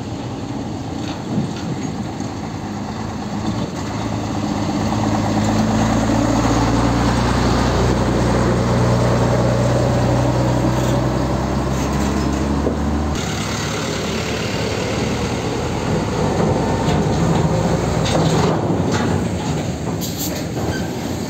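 Diesel engines of heavy Volvo tractor units hauling container trailers, passing close by. A low, steady engine drone builds over the first few seconds and holds; about two-thirds of the way in it cuts abruptly to another truck rolling past with engine and tyre noise and a few sharp rattles near the end.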